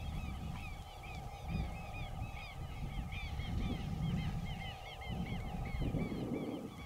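A flock of birds calling, many short arched calls overlapping several times a second, over a rumble of wind on the microphone.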